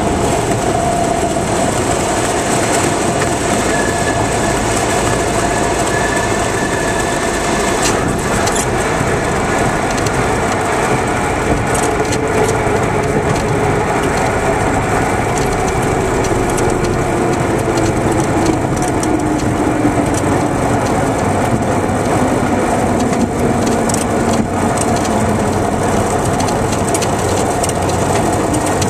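Cessna 172 Skyhawk's engine and propeller running at idle, heard from inside the cabin during the landing roll, with the wheels rumbling on the runway. There are a few knocks about eight to twelve seconds in, and one note of the engine sound falls slowly in pitch as the plane slows.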